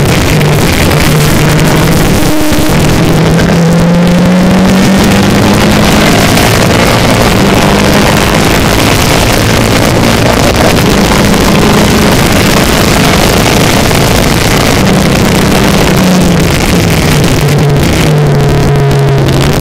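Formula Renault 2.0 car's four-cylinder engine heard from the cockpit at full racing load, with wind noise over the open cockpit. Its pitch climbs with a quick upshift about two seconds in and holds high down the straight; near the end it falls in steps as the driver brakes and downshifts for a corner, then starts rising again on the throttle.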